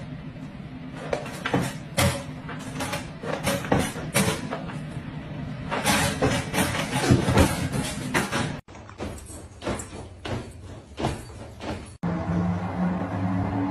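A plastic pet carrier's wire door rattling and knocking again and again as a dog pushes its way out past it.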